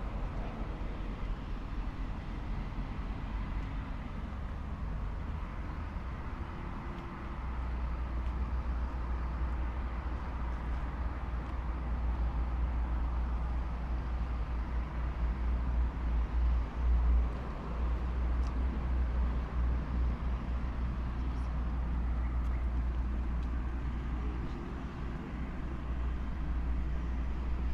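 Road traffic passing on a city street, with a deep rumble of a passing vehicle that builds about a quarter of the way in, is loudest around the middle and eases off near the end.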